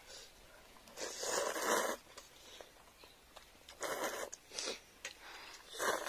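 People slurping instant noodles: one long slurp about a second in, then shorter slurps around four seconds in and again just before the end.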